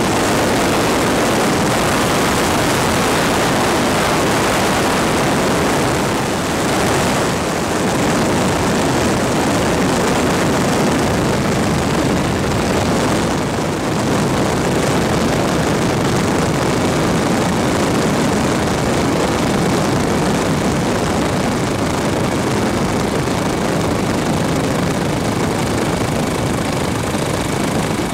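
A steady engine drone that runs on without a break, with a slight dip in level about six and a half seconds in and again near fourteen seconds.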